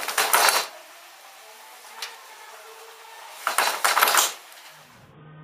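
Wooden handloom rattling and clattering in two short bursts as the woven cotton cloth is pulled and handled at it, with a single knock about two seconds in.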